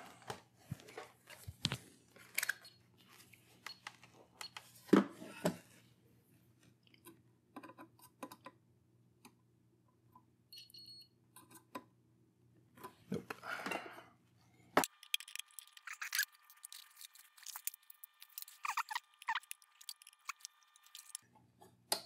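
Scattered small clicks, taps and rustles of hands handling multimeter probes, a fuse and tools on an open amplifier chassis, with one sharper click about five seconds in.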